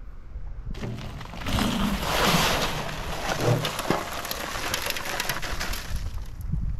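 Dry high-strength concrete mix pouring out of a paper bag into a wheelbarrow: a steady, hissing rush of sand and gravel with many small ticks, starting about a second in.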